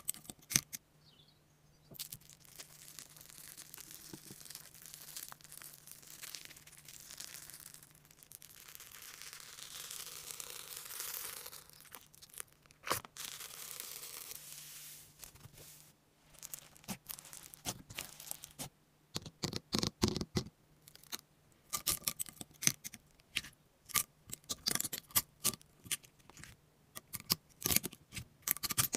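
Rapid light clicks of typing on a phone's on-screen touchscreen keyboard, thick in the second half. In the first half there is a stretch of soft rustling hiss.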